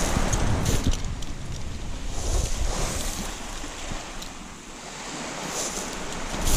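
Wind rushing and buffeting on the microphone, with waves washing on the shore; it eases a little about two-thirds of the way through.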